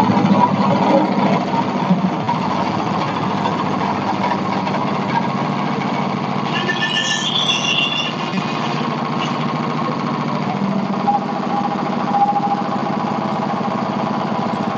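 Engine of a Hudson Patriot portable sawmill running steadily at a constant speed, with a brief high chirp about halfway through.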